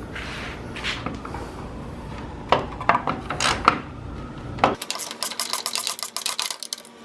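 Ratchet wrench with a 5/16 socket clicking fast as it backs out the bolts holding a headlight nose panel, with a few sharp metal clinks of tool on bolt before the clicking.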